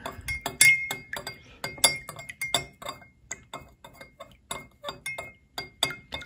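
Metal spoon stirring liquid in a glass measuring cup, clinking against the glass several times a second in an irregular rhythm, each clink with a short ringing note.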